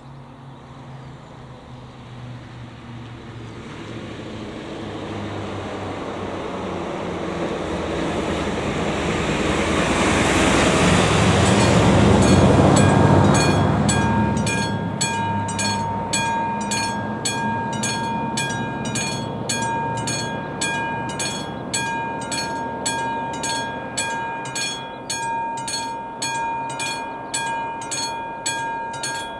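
A vehicle passes close by, loudest about twelve seconds in. Then, from about halfway through, the level crossing's classic mechanical warning bell starts ringing in steady, rapid strikes, a sign that the crossing's warning has begun for an approaching train.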